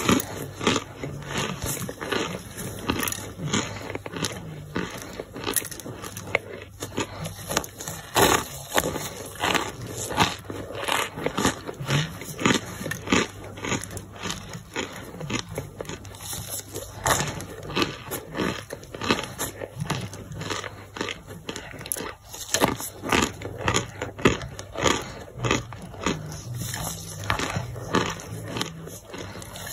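Gloved hand crushing a powdery boiled brick: a dense, irregular run of crisp crunches and crumbling crackles, several a second, as chunks break apart and powder falls.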